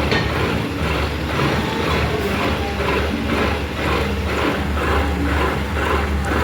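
Metal lathe running with a steady low hum, the cutting tool scraping rhythmically about twice a second on the heavy steel gear as it turns.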